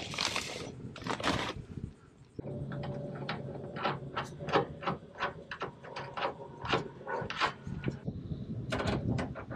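Bolt-tightening work on a truck's receiver hitch: a string of short metallic clicks and knocks, with a steady motor hum from a few seconds in until about a second and a half before the end.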